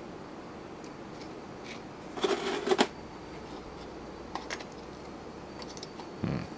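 Small plastic-and-metal clicks and rattles from the switch block of a dismantled air-conditioner thermostat being worked by hand. There is a quick cluster of clicks about two seconds in, a few light ticks later, and more clicking near the end.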